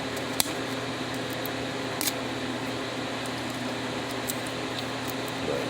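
Steady mechanical room hum, like an air conditioner or fan running, with a sharp click about half a second in and a brief scratchy noise about two seconds in.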